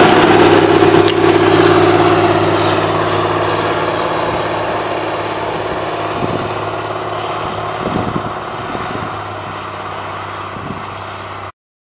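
Diesel engines of a Caterpillar 627B twin-engine wheel tractor-scraper running as it drives away, steadily fading, then cutting off abruptly near the end.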